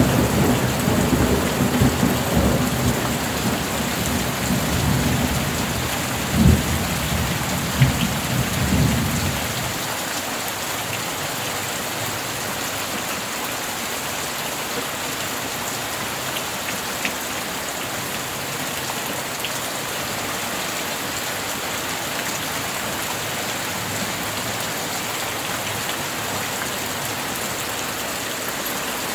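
Steady heavy rain, with thunder rumbling through the first third, swelling twice, then dying away about ten seconds in, leaving only the rain.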